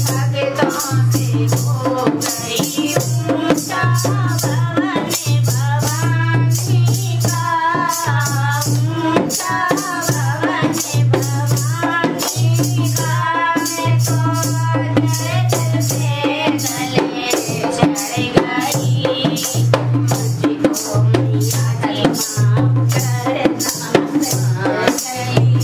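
Women singing a Hindi devotional bhajan together, accompanied by a dholak drum, hand-clapping and a rattling handheld plastic clapper keeping a fast, steady beat.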